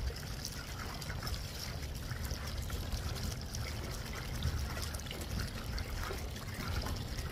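Water trickling and lapping along the hull of a small inflatable electric boat cruising at about 4 mph, over a low steady rumble.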